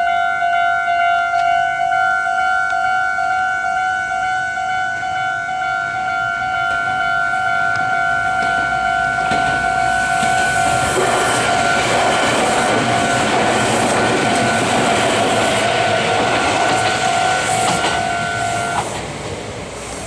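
Japanese level-crossing alarm ringing with a steady, rapidly repeating tone. From about halfway a Meitetsu 3700-series electric train passes over the crossing, its running noise swelling over the bell. The alarm cuts off about a second before the end, leaving the train's fading sound.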